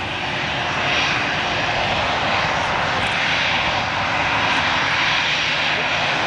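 Jet engines of an easyJet Airbus A320-family airliner running at taxi power, a steady rushing hiss that grows slightly louder about a second in as the aircraft turns to face the listener.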